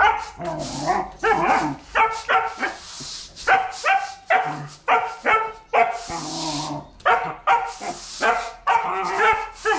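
Young dog barking and yipping playfully in quick, repeated bursts, several a second, while biting and tugging at a push broom.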